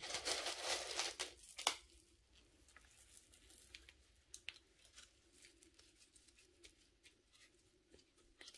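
Gloved hands rustling and pressing soil and small pebbles around a potted plant: a loud rustle for the first second and a half, ending in a sharp click, then faint scattered clicks and rustles.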